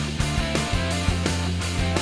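Background music with a steady beat over held low notes.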